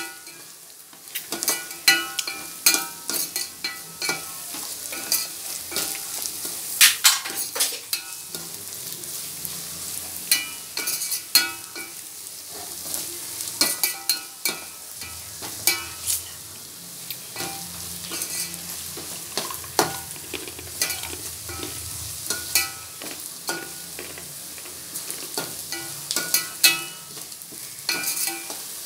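Steel spoon stirring and scraping sliced shallots and garlic sautéing in oil in a stainless steel pot: frequent, irregular sharp clinks of spoon on pot over a steady sizzle.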